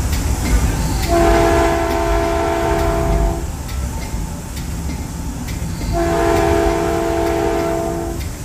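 Caltrain train's air horn sounding two long blasts of about two seconds each, a chord of several steady tones, over the low rumble of the train running on the rails.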